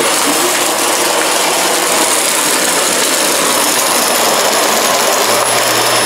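Dyson ball upright vacuum cleaner running on carpet: a steady rush of suction air with a thin, steady high whine from the motor. Its brush bar has just been cleared of clogged dog hair.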